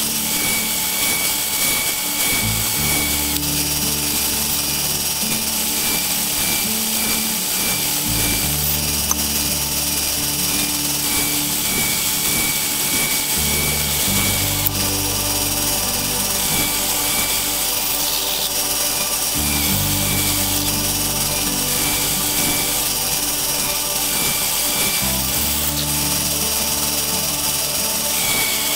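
Background music with held low chords that change every few seconds. Under it, a metal lathe cuts metal bar stock.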